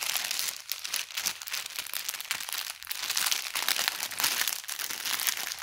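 Clear plastic packaging crinkling continuously as a child opens the bag and handles the pink ballet leotard inside it.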